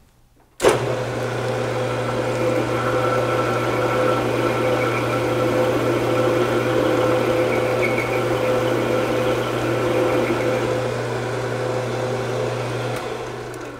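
Bench metal lathe switched on about half a second in and running steadily with a motor hum and whine while a parting tool cuts a snap-ring groove into a brushless motor shaft. It is switched off and winds down near the end.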